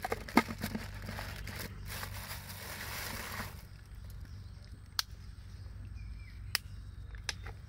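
Plastic bags rustling and crinkling as a hand rummages through them in a plastic bucket, stopping about three and a half seconds in. After that come a few sharp clicks over a low steady rumble.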